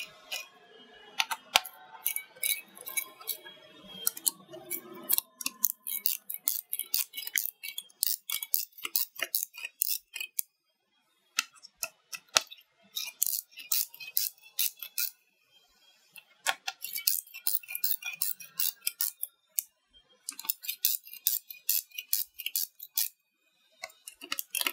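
Screwdriver turning the heatsink screws on a Dell R410 server's processor: runs of rapid, light clicks in several bursts with short pauses between.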